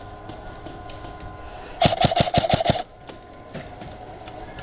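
Airsoft electric gun firing a full-auto burst of about a second, starting about two seconds in: a quick string of roughly nine sharp shots over a steady motor whine. Faint scattered clicks of other airsoft fire sound before and after it.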